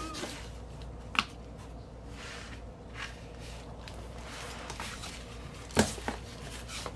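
Cardboard mailer box being handled and opened to lift out a vinyl LP: quiet rustling and scraping of cardboard, with a sharp tap about a second in and a louder knock near the end.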